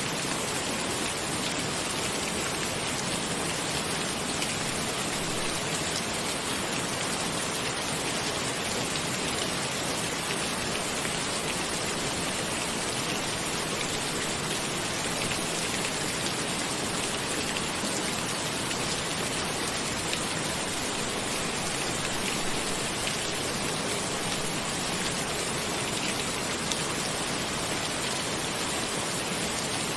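Steady rain falling on a cabin roof: an even hiss with faint scattered drop ticks, unchanging throughout.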